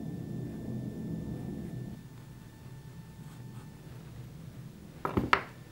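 A small metal tool scraping and cutting the soft clay at the end of a freshly cast slip-cast handle, soft and scratchy, easing off about two seconds in. A few sharp knocks about five seconds in.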